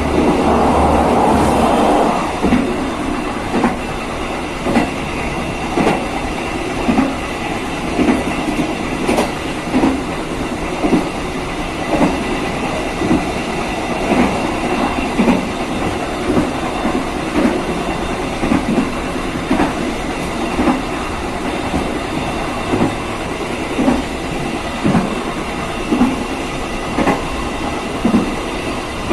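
Passenger train running along a single-track line, its wheels clicking over the rail joints in a steady clickety-clack, about one click a second, over a continuous rumble. A louder rush of noise fills the first two seconds.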